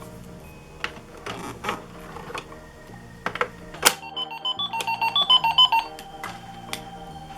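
Toy electronic cash register: a few sharp plastic clicks, then about four seconds in a quick electronic jingle of stepping beeps, ending in one steady held tone. Background music plays underneath.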